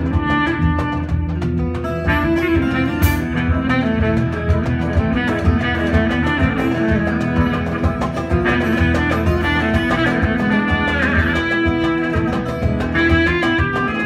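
Live band playing: rapid plucked notes from an oud and other plucked strings over electric bass and drums.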